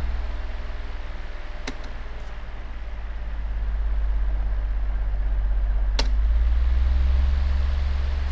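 Table fan running with a steady low motor hum and a rush of air, with two sharp switch clicks, about two seconds in and again about six seconds in. The hum dips, then builds up again from about three seconds in and is strongest after the second click.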